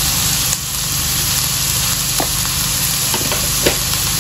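Diced tomato, onion and garlic sizzling steadily in hot oil in a nonstick wok, with a few light clicks in the second half.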